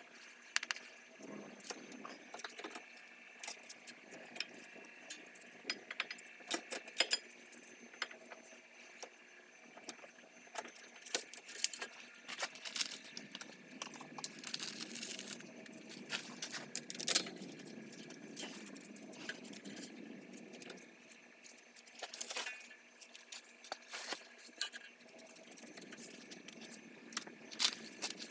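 Scattered light clicks and metallic clinks as a rear brake caliper and its pads are handled and fitted back over the disc. The sharpest click comes a little past halfway.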